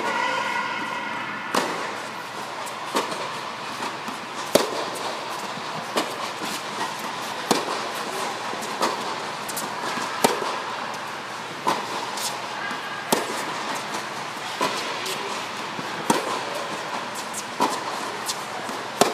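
Tennis rally: sharp pops of a racket hitting the tennis ball, about one every one and a half seconds, inside an air-supported tennis dome, over a steady background hum.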